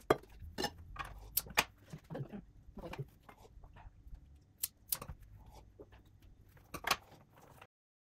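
Scissors snipping flower stems during flower arranging: a string of irregular sharp snips and clicks. It cuts off suddenly near the end.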